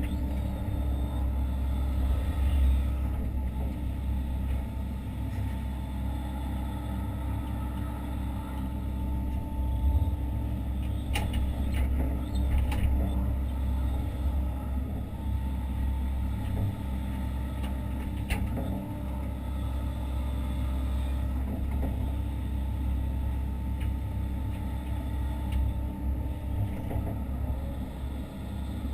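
Hitachi Zaxis 130 excavator's diesel engine running with a steady low rumble, heard from inside the operator's cab, with a few sharp knocks or clatters in the middle.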